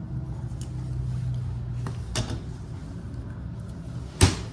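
Steady low hum of arcade machines, with a few light clicks about two seconds in and one sharp knock near the end.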